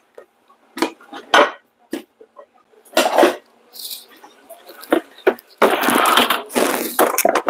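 Kitchen dishes and utensils clattering: a string of separate clinks and knocks, then a longer run of continuous rattling and scraping near the end.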